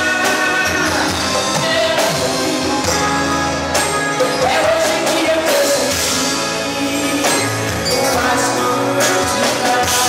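Live Christian worship band playing a song: drum kit, keyboards, bass guitar and congas, with a sung vocal line over them.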